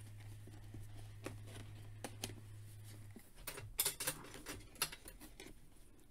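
Fingers picking and scratching at the bottom flap of a cardboard toy box, making scattered clicks and scrapes that grow busier in the second half. A steady low hum in the background stops about halfway through.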